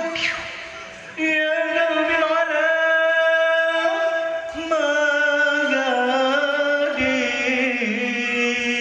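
A man singing long held notes in Arabic style, unaccompanied. The line steps down in pitch several times and is decorated with quick melismatic turns near the end. A brief break comes about a second in.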